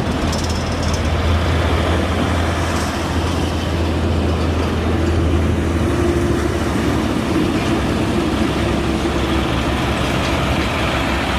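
Old Nissan Diesel UD truck's diesel engine running with a steady low drone, its pitch dropping slightly about six seconds in.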